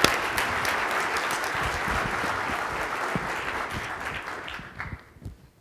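Audience applauding, the applause slowly fading and dying out about five seconds in.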